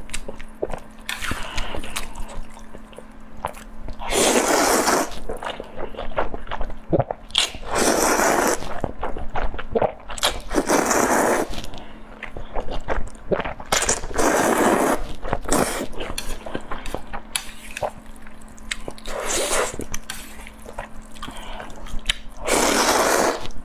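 A person eating close to the microphone: chewing and mouth smacks, with six louder noisy bursts of about a second each, spread through.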